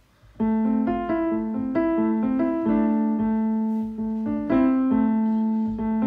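Piano music: a melody of single ringing notes that comes in about half a second in.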